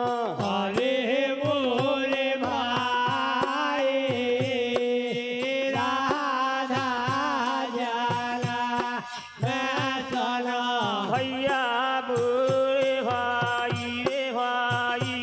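Indian folk devotional bhajan music: voices singing a wavering melody over a steady drone, with a regular drum beat and jingling cymbal strokes several times a second.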